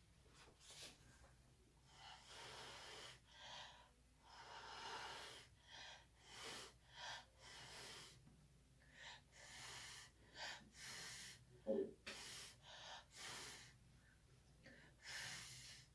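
Faint, repeated puffs of breath blown by mouth onto wet acrylic paint to push it across the canvas, some short and some about a second long, coming at irregular intervals. A brief knock is heard near the end.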